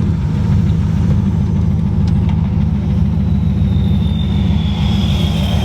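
Turbocharged Ford Mustang Bullitt's 5.0 V8 running steadily with an even rhythm in its low note. The owners take the noise for rod knock, though they later doubt that it is a rod bearing. A faint high whine comes in about three and a half seconds in.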